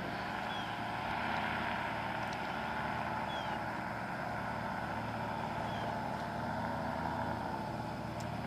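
Paramotor engine and propeller droning steadily in flight, its pitch wavering slightly up and down.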